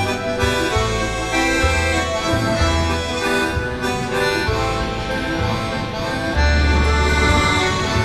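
Background music: a melody of held notes over a deep bass line.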